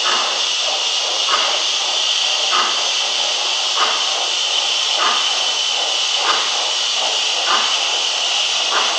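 Gauge 1 model BR 94 steam tank locomotives running slowly, giving a steady steam hiss with a soft, regular beat about every second and a quarter.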